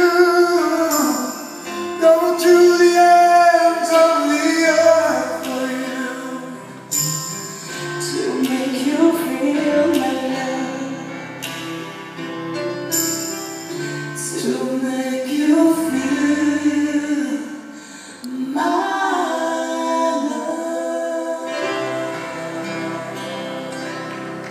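Live pop ballad duet: a man and a woman singing in turn with a band, acoustic guitar in the accompaniment, heard through the concert PA.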